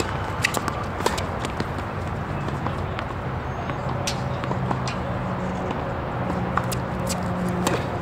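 Steady background noise at a tennis court, with a handful of sharp, separate knocks scattered through it and a low hum in the second half.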